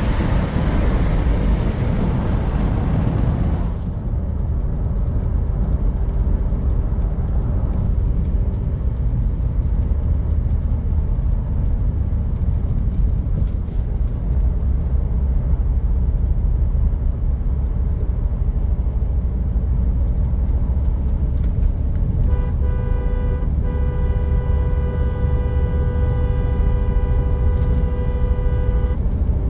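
Land Rover Discovery Sport's engine and road noise as a low, steady rumble while driving, with a wind-like hiss at first that cuts off about four seconds in. Near the end a vehicle horn sounds for several seconds with a brief break.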